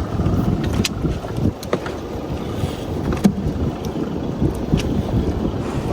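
Wind buffeting the microphone and water against the hull of a fishing boat at sea: a steady low noise, with a few sharp knocks now and then.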